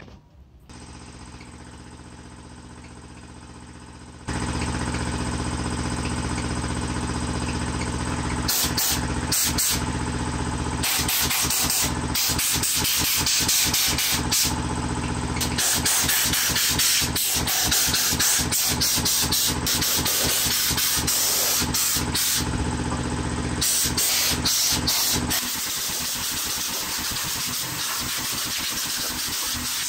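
Air compressor motor running with a steady hum, louder from about four seconds in. From about eight seconds on, a handheld air blow gun lets out hissing blasts of compressed air, some short and choppy, some held for a few seconds, blowing dust off a plastic CRT monitor casing.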